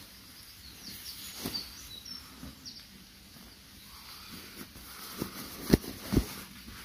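Nylon bivvy bag and sleeping bag fabric rustling as they are handled and tucked, with two sharp knocks close together near the end, the loudest sounds. A few faint bird chirps early on.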